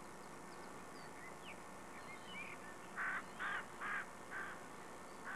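Birds calling: faint scattered chirps of small birds, then a louder harsh call repeated four times, about two a second, around three seconds in, over a steady background hiss.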